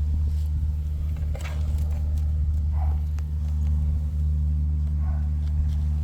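Old K-Mart box fan's electric motor running with a bicycle rim fitted in place of its blades, giving a steady low hum with a few faint ticks now and then.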